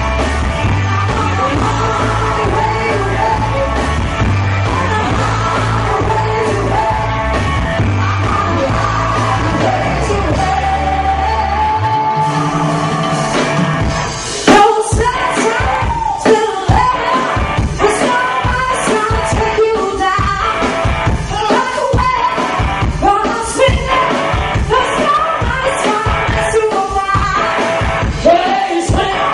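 Live rock band playing, loud. A held bass line carries the first twelve seconds or so. About fourteen seconds in, a hard hit brings in a steady, punchy drum beat under the full band.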